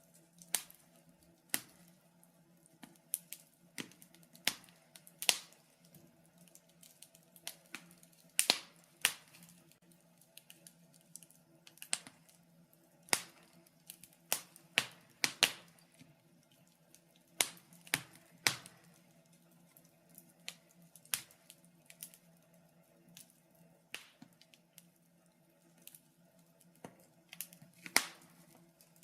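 Wood fire crackling in a fireplace: irregular sharp pops and snaps, sometimes several close together, over a faint steady low hum.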